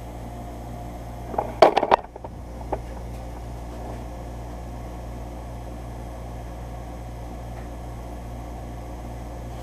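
Steady low electrical hum, with a short burst of paper rustling and clicks about one and a half seconds in as the continuous-feed printout is handled; the dot matrix print head is not printing.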